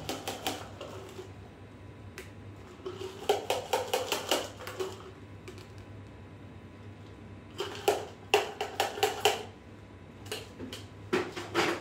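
Ice clinking and rattling in a metal cocktail shaker tin against the strainer as a shaken cocktail is double-strained into a glass, in four spells of quick clicks.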